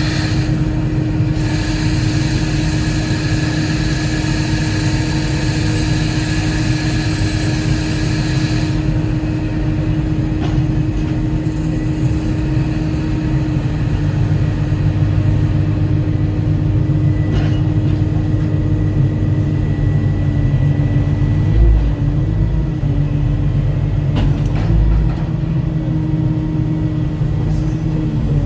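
Volvo 140E excavator's diesel engine running steadily at work, with a high-pitched hiss that cuts off about nine seconds in and a few light knocks later.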